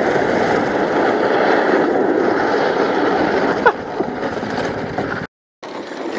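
Small tracked snow vehicle driving across lake ice towing sleds: steady engine and track noise, with a short squeak about three and a half seconds in.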